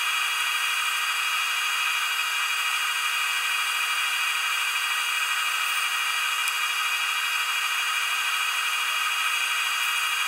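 Wood lathe running at steady speed with a constant motor whine, while sandpaper held against the spinning walnut goblet makes a steady rubbing hiss.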